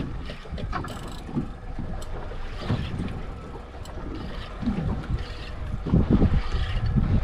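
Wind rumbling on the microphone over water moving around a small boat at sea, with a few faint clicks. It gets louder about six seconds in.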